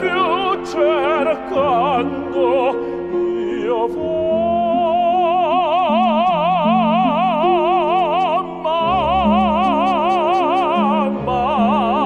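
A man's classically trained operatic voice singing with a wide, even vibrato over instrumental accompaniment. He holds one long note from about four seconds in to nearly nine seconds.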